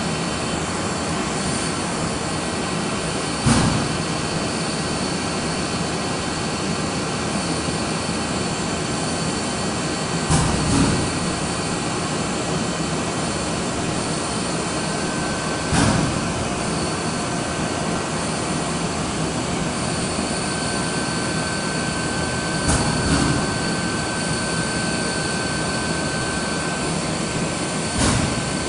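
Mitsubishi ML605GTWIV-H printed-circuit-board laser drilling machine running: a steady mechanical hum with a few high steady tones, broken by a short thump about every six seconds.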